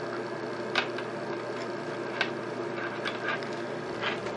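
A steady low hum, with a few faint small clicks from suede cords and small metal end pieces being handled while a knot is tied.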